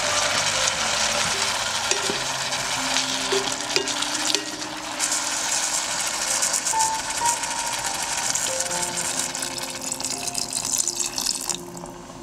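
Mushrooms and tomatoes sizzling in a hot cast-iron pot. The sizzling grows brighter about five seconds in as soy sauce is poured in, and drops away sharply near the end. Soft background music plays throughout.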